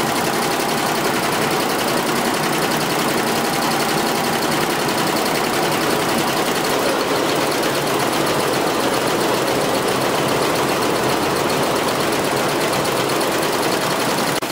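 Jintel multi-head computerized embroidery machine running steadily, its needles stitching at a rapid, even rate.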